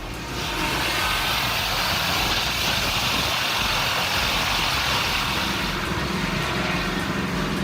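Sawmill machinery running, a loud, steady hissing noise that comes in a moment after the start and holds even throughout.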